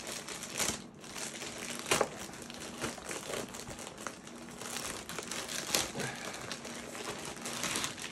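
Black plastic mailer bag crinkling and rustling as it is opened and handled, with a few sharper crackles.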